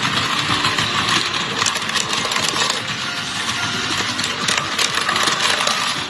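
A small motor running with rattling clicks, under background music.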